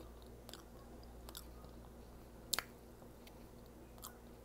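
A person chewing food close to the microphone, with soft wet mouth clicks and one sharp click about two and a half seconds in.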